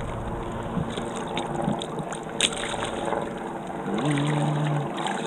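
Water splashing and dripping beside a kayak as a paddle lifts a rope line of crab-trap floats out of the sea. A sharp click about two and a half seconds in, and a short low hum about four seconds in.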